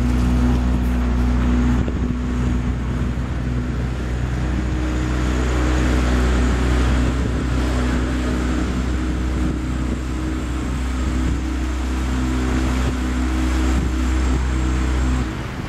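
River tour barge's motor running with a steady low hum under a wash of noise; the hum drops away just before the end.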